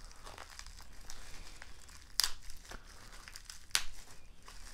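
Bubble-wrap pouch crinkling as hands handle and unwrap it, with two sharper crackles, about two seconds in and again near the end.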